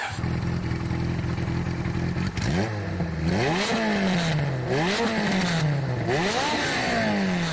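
Motorcycle engine idling steadily, then blipped several times: each rev rises quickly and falls slowly back toward idle.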